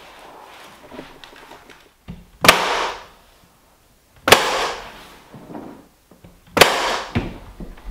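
Pneumatic staple gun firing three times, about two seconds apart, fastening underlayment paper to the subfloor; each shot is a sharp crack followed by a short hiss. Faint paper rustling comes before the first shot.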